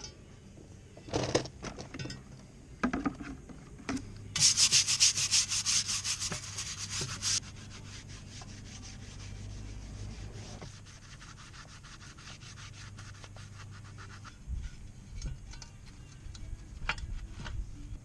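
Hand work on a metal mower part: a few knocks and clinks, then about three seconds of rapid, loud rasping strokes, like a file or abrasive worked back and forth, followed by quieter rubbing and scattered clicks.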